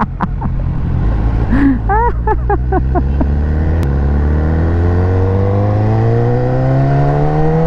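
2019 BMW S1000R inline-four engine with an Akrapovic exhaust accelerating hard at held throttle and upshifting smoothly. The engine note steps at gear changes about a second in and again near four seconds, then rises steadily in pitch.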